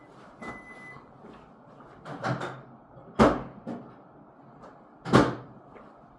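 Microwave oven beeping once, then the clunks of its door being handled: three sharp knocks, the loudest about three and five seconds in.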